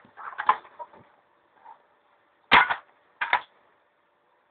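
A B2 air rifle fires with a sharp crack about two and a half seconds in, followed under a second later by a second, shorter knock. Fainter knocks and handling noises come in the first second.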